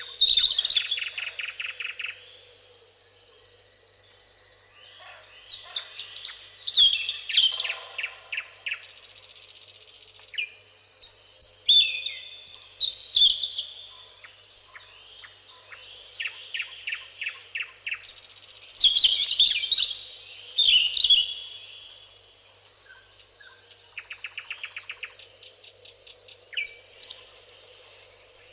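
Several songbirds singing and calling at once: chirps, whistled phrases and rapid trills, heard over a faint steady high-pitched hum.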